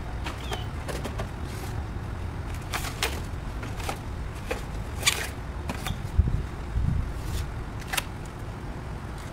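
Wind rumbling on the microphone, with scattered light clicks and knocks and one heavier thump about six seconds in.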